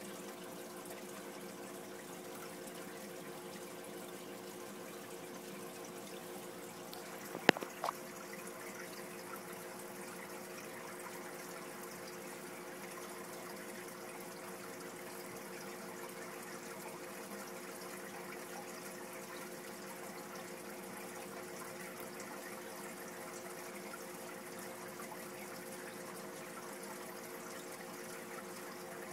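Fish tank's aeration bubbling and water trickling over a steady low hum from its pump. A sharp click, with two smaller ones just after, about seven and a half seconds in.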